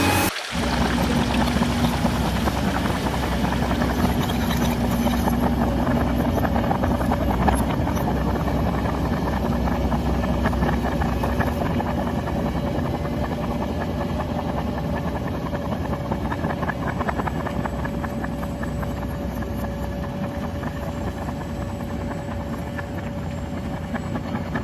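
Small electric motor running with a steady whine, its level easing slightly over the stretch.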